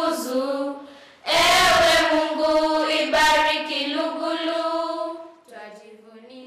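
A children's choir singing a Swahili school song, holding long sustained notes; the singing drops much quieter about five and a half seconds in.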